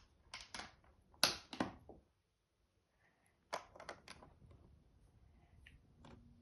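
Plastic Lego pieces clicking and rattling as they are handled and pressed together, in two short flurries of sharp clicks with a dead-quiet gap between them.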